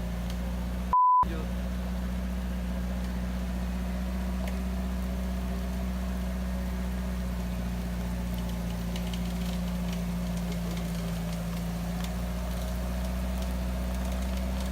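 UAZ off-roader's engine idling steadily. About a second in, a short loud beep tone replaces the sound, edited in as a censor bleep.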